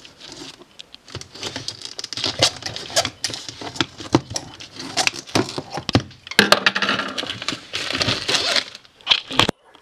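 Scissors snipping and plastic wrapping crinkling and tearing as a box is cut open: a busy, irregular run of sharp clicks and rustles, breaking off briefly near the end.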